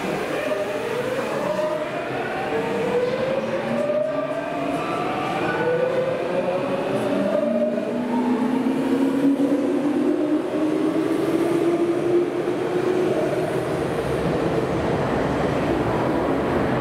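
Electric commuter train pulling away and accelerating. Its traction motors give a whine of several tones rising steadily in pitch, over steady running noise.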